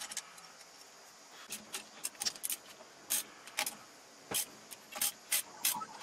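Irregular metallic clicks and clinks of a ring spanner on the housing bolts of a Ford Falcon alternator as its alloy case is bolted back together, starting about a second and a half in.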